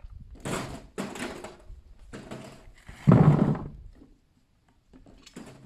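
A few irregular clunks and scrapes, five in all, the loudest and heaviest about three seconds in.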